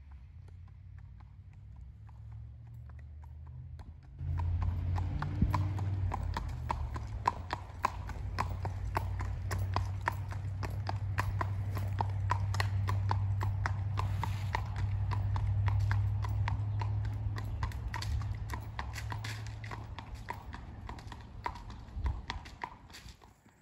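Gaited horse's hooves clip-clopping on a paved lane in a quick, even rhythm as it is ridden past. The hoofbeats come in clearly about four seconds in, are loudest midway and fade near the end. A steady low hum runs beneath.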